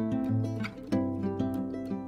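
Background music: plucked string instruments playing a melody, with steady sustained notes.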